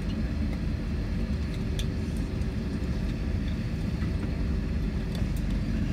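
Cabin noise of an Airbus A321 taxiing: a steady low rumble from the engines and airframe, with a few faint ticks.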